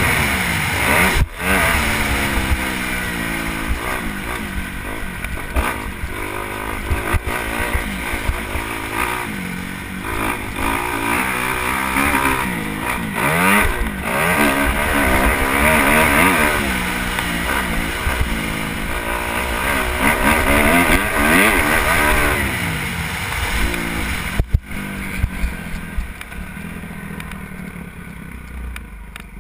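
Motocross bike engine revving up and dropping back repeatedly, its pitch rising and falling every second or two, growing quieter near the end.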